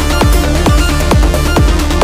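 Background electronic dance music with a steady kick drum beat, a little over two beats a second.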